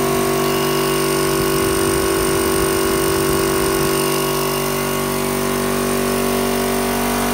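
SGS 50V 3 hp direct-drive V-twin air compressor running steadily, its pump filling the 50-litre receiver, with an even, pitched hum. The tank is close to full pressure, around 8 bar.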